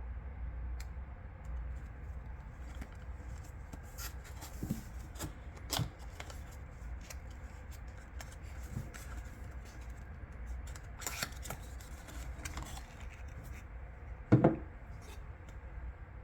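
Packaging of a boxed cologne being handled and opened: scattered rustles and small clicks, with a louder knock about fourteen seconds in.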